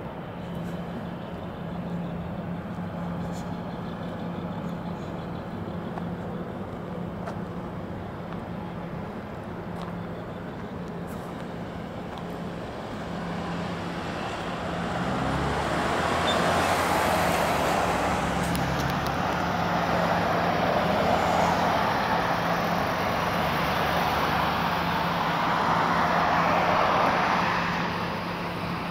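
Road traffic at an intersection: a steady low hum throughout, with vehicles driving past and getting louder over roughly the second half.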